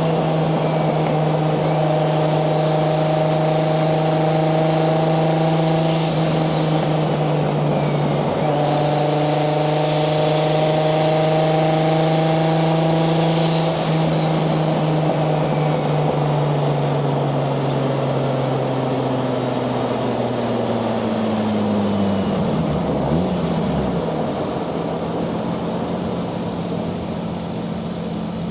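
Nissan 240SX's single-turbo 1JZ VVTi straight-six running at steady revs. Twice, a high turbo whine rises, holds for a few seconds and then drops away. After that the revs fall and settle into a lower steady note near the end.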